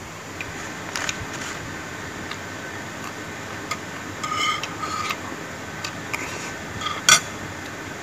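Eating at a table: a spoon and chopsticks clicking and scraping on a plate, with small chewing and handling noises over a steady background hiss. A short squeak comes about halfway, and a sharp clack near the end is the loudest sound.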